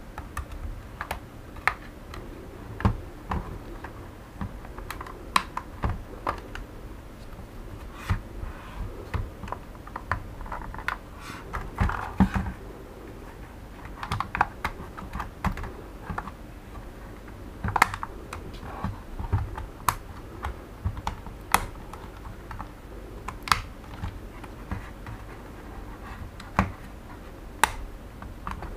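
Irregular sharp plastic clicks and taps as the plastic shell of a Xiaomi Mi Drone 4K remote controller is pried open and handled, about one or two clicks a second with a quick cluster about twelve seconds in.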